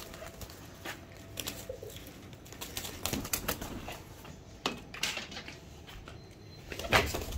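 Domestic pigeons around a loft, with short bursts of wing flapping and scattered knocks and a faint coo. The loudest burst comes near the end.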